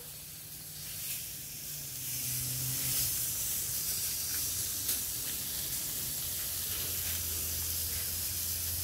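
Meat sizzling on a barbecue grill: a steady hiss with a few faint crackles.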